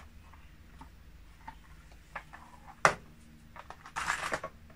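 Handling of a small clear plastic container and Lego pieces on a table: a few light clicks, then a sharp plastic clack about three seconds in. A brief paper rustle follows near the end as a Lego instruction booklet is picked up.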